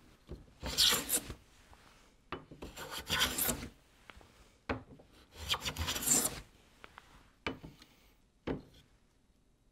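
Smoothing plane with a high-angle blade taking three test cuts across dense, interlocking-grained marblewood, each stroke a rasping shave of wood. A few short knocks fall between and after the strokes.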